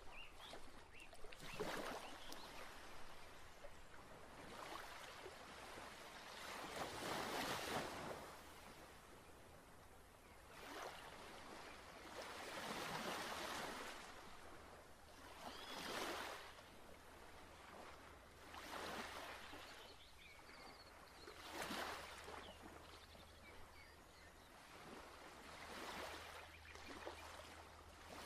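Ocean waves washing in and drawing back, a soft swell every few seconds, with a few faint bird calls above them.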